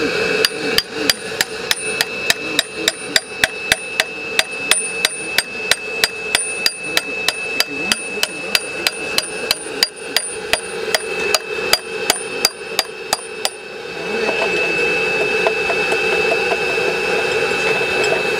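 Hammer driving a steel chisel into a stone cornerstone, about three sharp, ringing blows a second, chipping stone away from around a metal time-capsule box. The hammering stops about thirteen seconds in and gives way to lighter chisel scraping and tapping.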